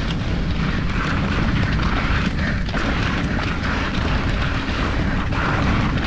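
Mountain bike riding fast down a dirt trail, heard through an action camera's microphone: a steady low rumble of wind on the microphone over the tyres on dirt and the bike rattling.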